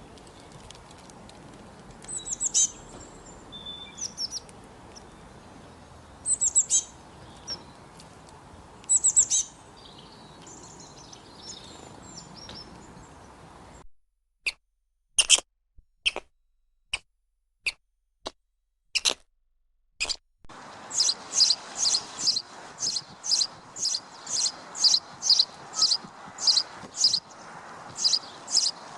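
Small birds chirping: scattered high calls over a steady background hiss, then a few separate chirps against silence, then a quick run of repeated chirps, about two a second.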